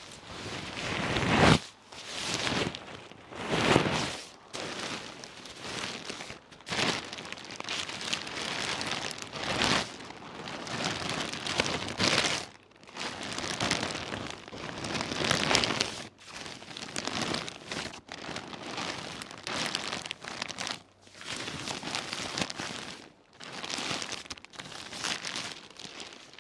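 Rustling and crinkling from material being handled close to the microphone, in uneven bursts every second or two, loudest in the first few seconds.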